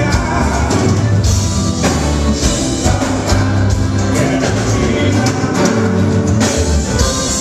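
Amplified band music with singing, driven by a strong bass line and a steady percussion beat.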